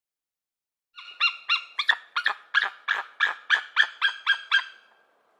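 An animal calling in a rapid series: about a dozen short, sharp calls, around three a second, each dropping quickly in pitch, starting about a second in.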